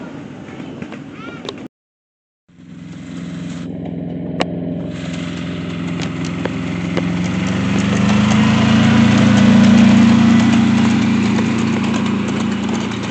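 Engine of a 7¼-inch gauge miniature railway locomotive running and drawing near, loudest about ten seconds in and then easing off, with light clicks from the wheels on the track. A short break in the sound about two seconds in.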